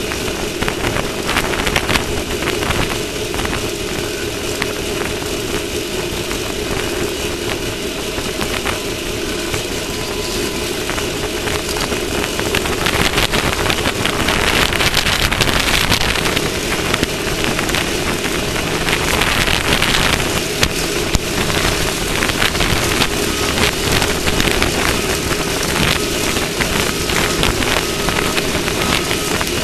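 Off-road race vehicle's engine running steadily under a dense rush of wind and ground noise, with two louder surges of hiss about halfway through.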